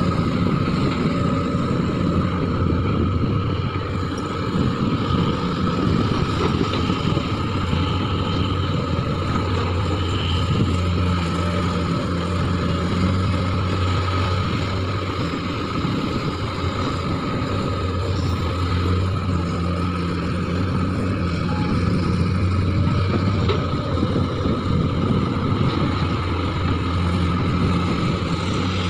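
Diesel engines of hydraulic crawler excavators running while digging, the nearest a Hyundai. A low steady engine hum that swells and eases as the load changes, with a steady high whine over it.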